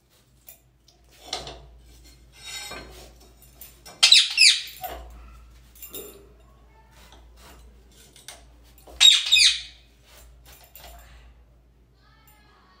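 A pet rose-ringed parakeet squawks twice, with loud, harsh calls about four seconds and nine seconds in. Fainter, shorter sounds come in between.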